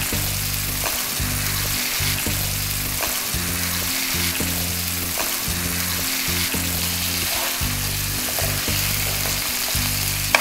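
Chicken pieces sizzling as they fry in oil with onions and spices in a nonstick pan, stirred with a metal spoon that clicks and scrapes against the pan now and then. Background music with sustained low notes plays underneath.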